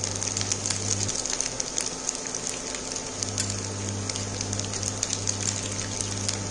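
Rice, vegetables and dry fruits sizzling gently in ghee in a kadai: a steady fine crackle of small pops. Under it a low steady hum cuts out about a second in and returns about three seconds in.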